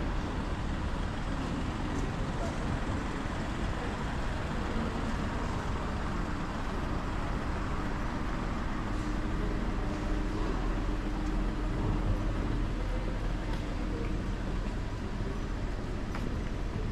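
City street ambience: steady road traffic noise with a low rumble.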